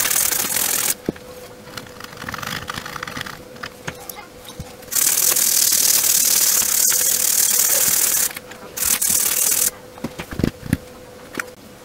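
Scrubbing the freshly soldered trace repair on a TV power-supply circuit board clean, with spells of loud, steady hiss that start and stop suddenly, the longest from about five seconds in. A faint steady hum underlies it.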